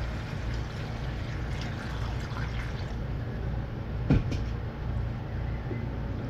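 Water poured into a pot of fish curry, splashing steadily for about three seconds. A single sharp clank comes about four seconds in, over a steady low hum.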